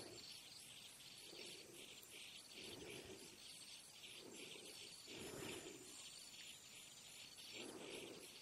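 Faint insects chirping in an even pulse of about three chirps a second. A lower call repeats underneath every second or two.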